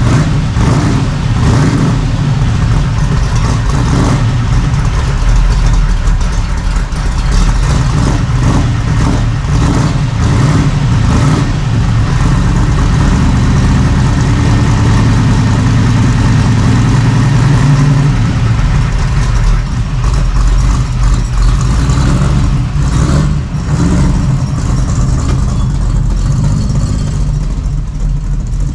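Chevrolet Nova's engine running steadily as the car is driven out of the garage.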